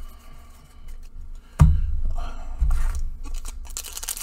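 Hands handling and setting down a stack of trading cards on a table, with a thump about a second and a half in, then the crinkle of a foil booster-pack wrapper being picked up near the end.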